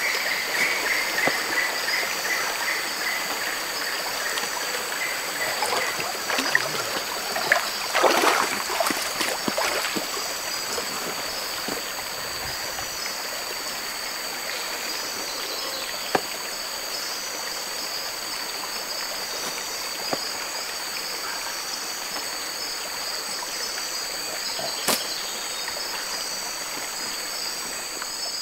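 Rainforest stream running steadily, with a constant high insect drone above it. A falling series of chirps sounds over the first few seconds, there is a short burst of rustling about eight seconds in, and a few sharp clicks come later.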